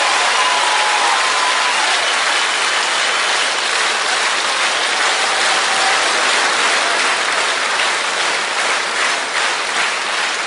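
Studio audience applauding steadily, a dense clapping that thins into more separate claps near the end.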